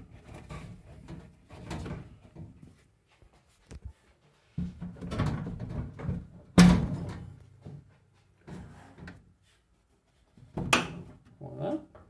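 Clunks, knocks and rustling of hands working on a tumble dryer's front frame as a push-fit plastic drum bearing is fitted. There is a sharp knock about halfway through and another near the end.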